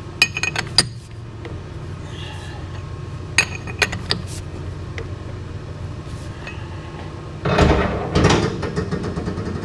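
Metal lathe running with a steady low hum, broken by a few sharp metallic clinks near the start and again about three and a half seconds in, and a louder rough, scraping noise for about a second near the end.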